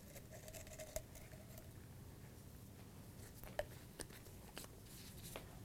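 Near silence: quiet room tone with a few faint, scattered clicks and taps of small items being handled.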